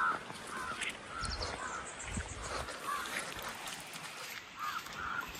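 Birds calling outdoors: several short, arching calls come a few at a time over a faint background hiss and low rumble.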